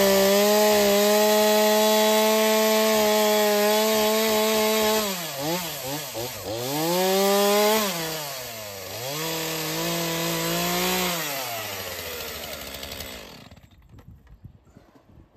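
Stihl two-stroke chainsaw at full throttle, cutting into a thick wooden slab. Its pitch holds steady at first, then dips and rises several times. It tails off and falls silent about thirteen seconds in.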